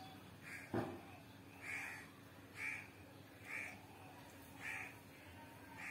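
A crow cawing repeatedly, short harsh caws about once a second. A single sharp click about a second in is the loudest sound.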